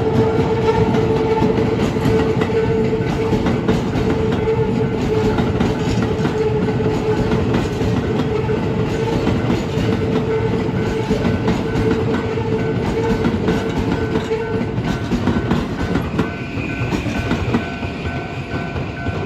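Toei 5500 series electric train running over a level crossing, its wheels clattering over the rail joints, with the crossing alarm sounding steadily. The train noise eases slightly near the end as it moves away.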